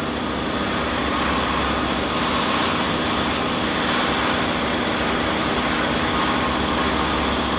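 Steady mechanical hum and hiss of a machine running continuously, even in level throughout.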